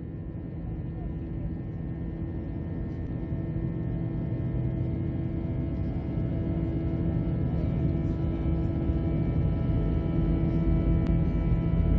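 Jet engine noise heard inside the cabin of an Airbus A321 rolling on the runway: a steady rumble with a steady hum of fixed tones on top, growing louder throughout.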